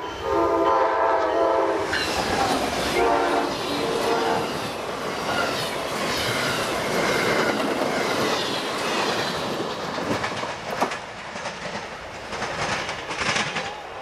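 A multi-tone train horn sounds two blasts, the first about two seconds long and the second shorter. Then an Amtrak passenger train passes close by with a steady rush of wheels clattering on the rails, dropping off at the very end.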